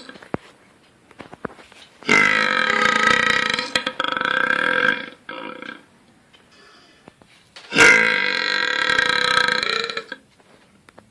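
Two long, loud belches from a man burping on command: the first starts about two seconds in and lasts around three seconds, the second starts abruptly near eight seconds and lasts about two and a half.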